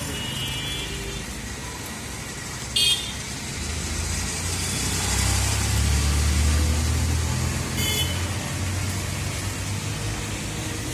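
Road traffic going past: a low rumble from a passing vehicle swells through the middle, with two brief horn toots, one about three seconds in and one about eight seconds in.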